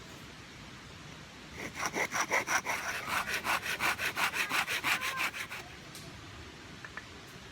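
Hand saw cutting through a scrap wooden rafter in quick back-and-forth strokes, about five a second, for roughly four seconds starting about a second and a half in.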